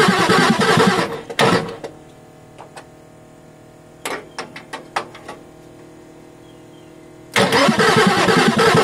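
Ford 6.9L IDI V8 diesel being cranked by the starter, a rhythmic chugging that stops about a second in. After a pause broken by a few sharp clicks, the cranking starts again near the end.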